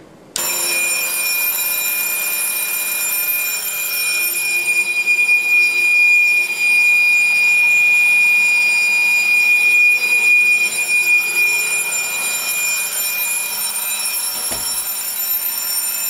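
Home fire alarm system going off: an electric alarm bell ringing continuously together with a Gentex Commander 3 horn sounding a steady, high 2400 Hz tone on its continuous setting. Both start suddenly just after the beginning as the pull station is tripped.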